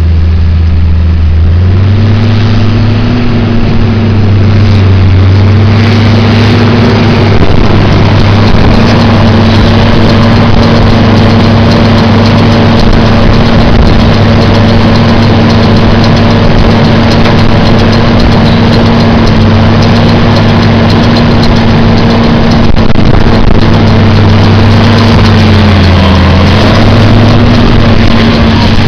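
Tractor engine running steadily under load. Its note rises about a second and a half in, dips briefly near the end and picks up again. Wind blows across the microphone throughout.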